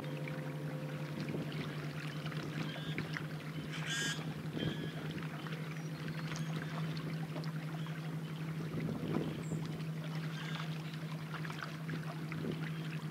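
Distant speedboats running across open water: a steady low engine drone over an even wash of outdoor noise.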